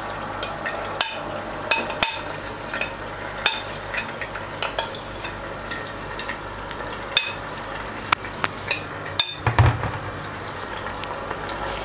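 Marinated chicken sizzling in hot oil in a cooking pot, with a utensil clinking and scraping against the pot every second or so as the remaining masala marinade is added; a heavier knock about nine seconds in.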